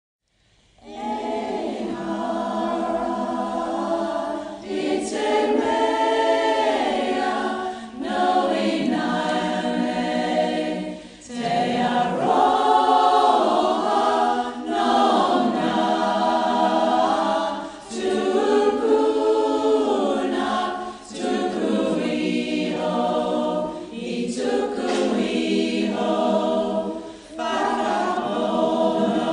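Choir singing a cappella as background music, in held phrases a few seconds long with short breaks between them.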